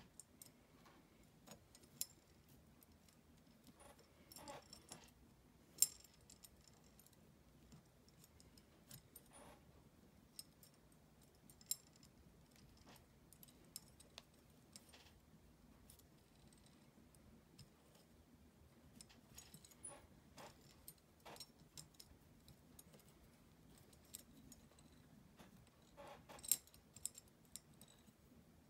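Wire being wrapped by hand around the pegs of a perforated metal jig plate: scattered small metallic clicks and jingles, a few sharper than the rest, over a faint steady low hum.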